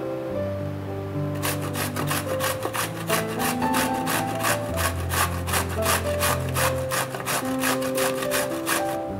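Fresh zucchini being grated by hand on a stainless steel box grater: quick, even rasping strokes, about four a second, starting about a second and a half in and stopping just before the end.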